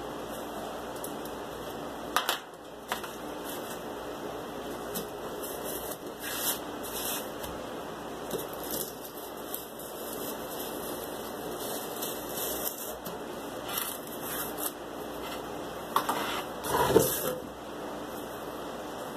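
Hand work on cardboard: short scraping and rubbing strokes with a few light clicks, and a louder knock and rustle of handling the cardboard model near the end.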